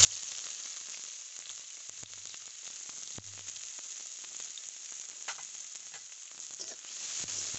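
Finely chopped onion and green chilli sizzling in hot oil in a kadai: a steady hiss with scattered faint crackles, growing a little louder near the end.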